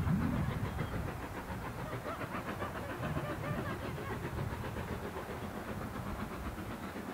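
BR Standard Class 2MT 2-6-0 steam locomotive hauling a passenger train, its exhaust beating in a steady rhythm with the hiss of steam over a low rumble.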